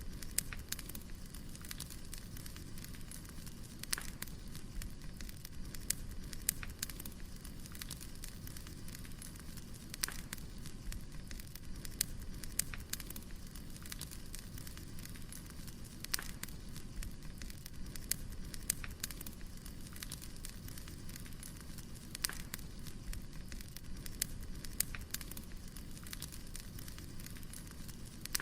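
Wood fire burning, crackling and popping with irregular sharp snaps over a low steady rumble.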